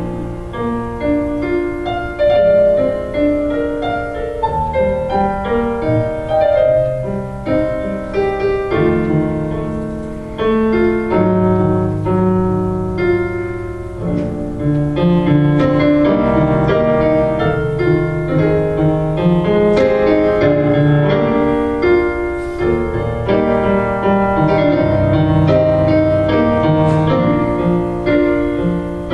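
Piano playing an instrumental interlude between worship choruses: slow, sustained chords and melody notes.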